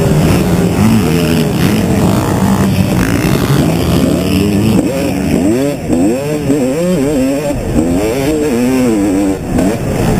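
Motocross bike engine at race pace, close up over rushing wind. It runs at steady high revs for the first few seconds, then rises and falls rapidly in pitch for about five seconds as the throttle is worked on and off over rough ground.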